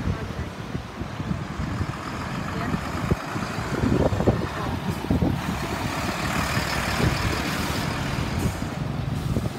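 Volvo lorry driving past close by, engine running and tyres on the road, loudest about four seconds in.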